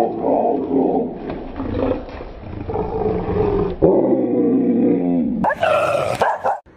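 Dog snarling and growling as it attacks a stuffed toy tiger, with a louder, higher-pitched cry near the end.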